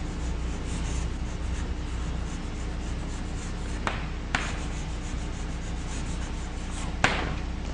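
Chalk writing on a blackboard: faint scratching strokes with three sharp taps of the chalk against the board, over a steady low hum.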